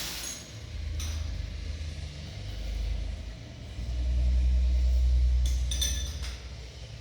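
A deep rumble that swells to its loudest about four to six seconds in, with a few short metallic clinks near the end.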